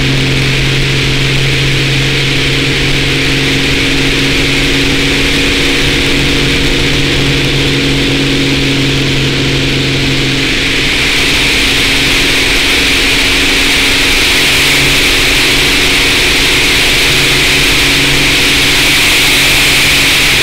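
Skybolt biplane's piston engine and propeller running steadily, heard from the open cockpit under heavy wind rush. About halfway through, the wind rush grows louder and brighter and the engine tone weakens as the plane picks up speed in the split-S.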